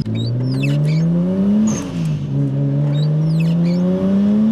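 Nissan Skyline R34's RB25 turbocharged straight-six accelerating: the revs climb, fall at a gear change a little under two seconds in, then climb again. The worn windscreen wipers squeak in short high chirps over it.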